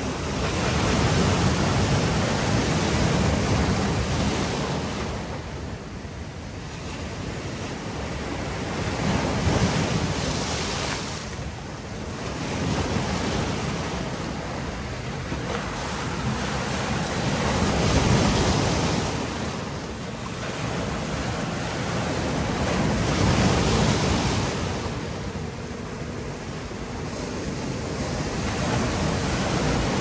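Sea waves breaking on a shore of boulders and washing over the rocks, rising in a fresh surge every six to nine seconds and ebbing between.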